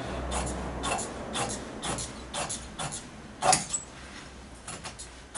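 Large fabric shears snipping through thick woven upholstery fabric, a cut about every half second, with one louder snip about three and a half seconds in.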